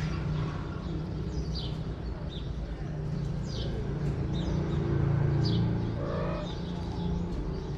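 Short, high bird chirps about once a second over a steady low rumble.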